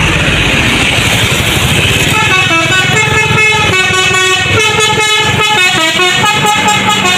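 Tour coach's multi-tone 'telolet' horn playing a stepping melody, starting about two seconds in, over traffic noise.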